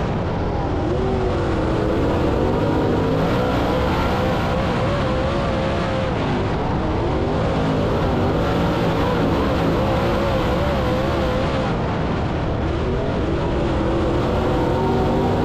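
Dirt late model race car's V8 engine running hard under racing throttle, its pitch wavering up and down continually as the driver works the throttle.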